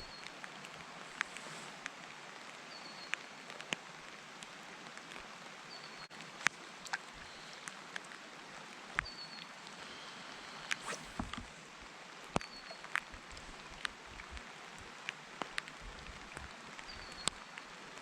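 Heavy rain falling steadily as an even hiss, with scattered sharp drops striking close by at irregular moments. A faint short high chirp repeats every couple of seconds.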